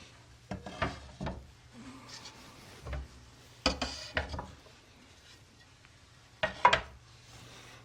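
Wooden drafting-table parts being handled and set down, with a handful of separate knocks and some scraping; the loudest knock comes a little before the end.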